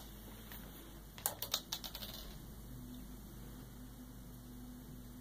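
A quick run of about half a dozen light plastic clicks and rattles from K'NEX rods and connectors as a cat jostles them, over in about a second.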